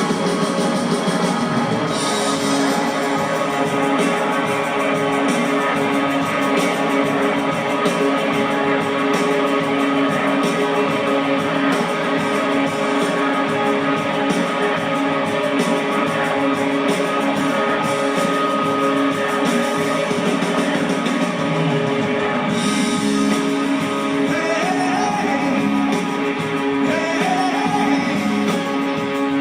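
Live rock band music: a sustained droning chord with guitar and singing voices over it.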